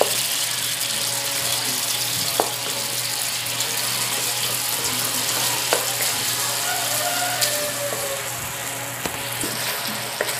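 Tuna sautéing with onion and garlic in butter and oil in a pan, sizzling steadily, with a few sharp clicks of the stirring utensil against the pan.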